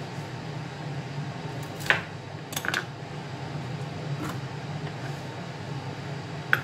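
Kitchen knife chopping through a bunch of yard-long beans onto a plastic cutting board: sharp knocks, one about two seconds in, a quick pair soon after, a fainter one past the middle and another near the end. A steady low hum runs underneath.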